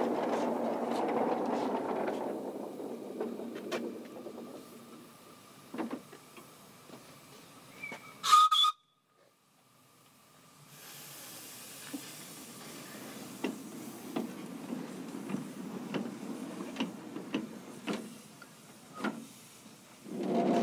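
Miniature live-steam LMS Black Five locomotive hissing steam, with one short shrill whistle blast about eight seconds in. The hiss is loud at first and fades, then after a brief gap goes on softly with occasional clicks.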